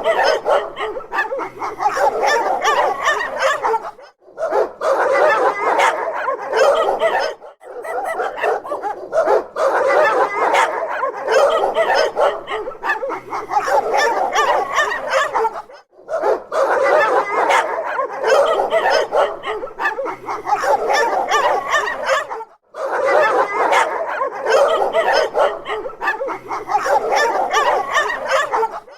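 Dogs barking and yipping in a dense run of overlapping barks, broken four times by short gaps where the sound drops out.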